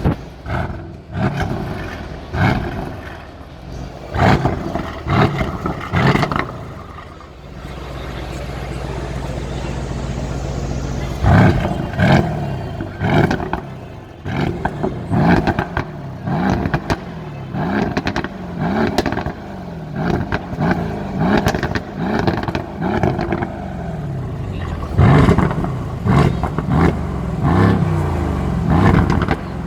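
Mercedes-AMG GLC63 S's 4.0-litre twin-turbo V8 being blipped repeatedly from idle. Each rev rises sharply and drops back, with exhaust crackles and pops as it falls. There is a few seconds of steady idle before a quicker run of blips.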